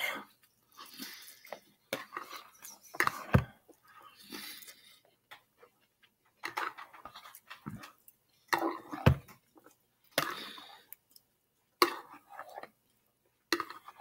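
Someone eating instant ramen noodles with a fork: irregular slurping and chewing, with the fork now and then clinking against the bowl.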